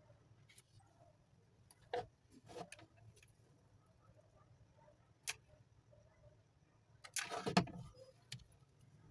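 Faint handling noises of small metal parts and a hand-held rotary tool on a hardboard work surface: a few separate clicks and taps, then a louder clatter lasting under a second about seven seconds in. The rotary tool's motor is not running.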